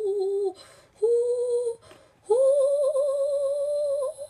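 A person's voice making a wordless, hummed impression of a cartoon face: three held notes, each a step higher than the last, the third the longest.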